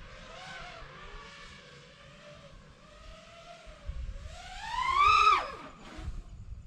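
FPV quadcopter's electric motors and propellers whining, the pitch wavering with small throttle changes. About four seconds in, a throttle punch sends the whine rising steeply to a loud peak, and it falls away again just after five seconds.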